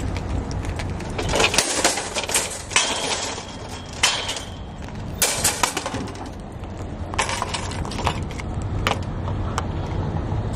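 A plastic-and-metal shopping cart being pulled out of a cart corral and pushed across an asphalt parking lot. Its wheels rumble steadily, broken by repeated sharp rattles and clanks from the metal frame and wire seat.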